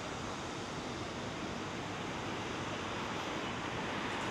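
Steady city street ambience: an even, unbroken wash of traffic noise.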